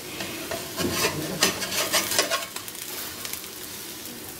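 An egg-and-bread omelette sizzling in butter in a frying pan. About a second in, a spatula scrapes and knocks against the pan several times as the omelette is lifted and turned over.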